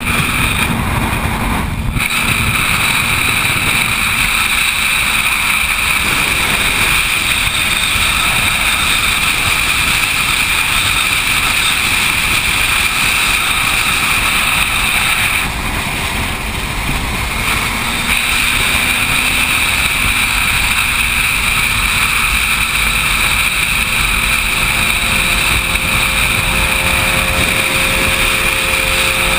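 Steady wind rush on the microphone of a camera riding on a motorcycle at highway speed, with engine and road noise underneath. The noise dips briefly about halfway through.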